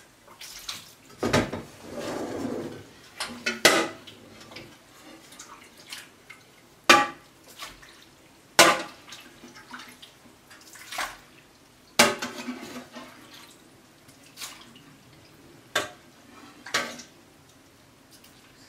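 Metal ladle clinking and knocking against a white enamel pot as sheep's-milk whey and curd are ladled and poured off to be strained, with liquid splashing in between. About a dozen sharp knocks come at irregular intervals.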